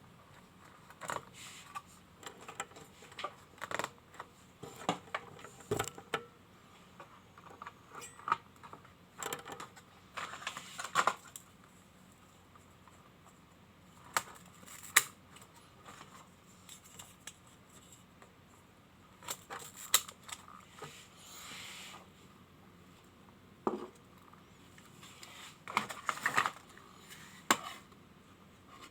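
Irregular light clicks, taps and rattles of small hard objects being handled, with a brief soft scraping or rustling stretch a little after the middle.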